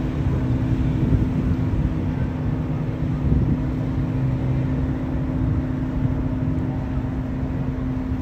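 Boat engine running at a steady drone: a constant hum over a low rumble.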